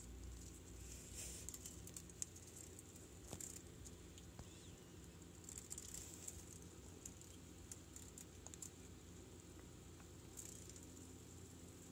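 Faint pattering and light tapping of sphinx moth wings fluttering against a wall, in a few short spells among scattered ticks.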